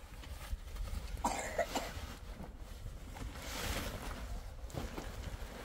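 Rustling and crinkling of a pop-up tent's fabric and its carry bag as the folded tent is pulled out of the bag and begins to spring open, in irregular bursts over a steady low rumble.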